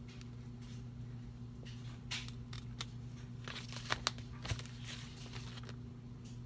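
Paper being handled: short rustles and small clicks from about two to five and a half seconds in, over a steady low electrical hum.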